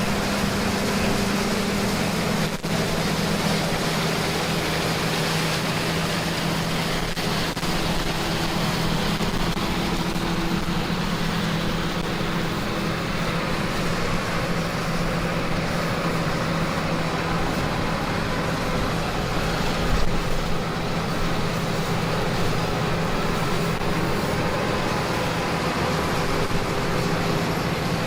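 Engine and machinery running steadily, with a constant low hum through the noise and a brief low thump about twenty seconds in.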